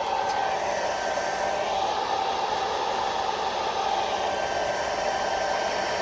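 Hair dryer running steadily, blowing on a freshly applied first layer of lace-wig glue to dry it before the next layer.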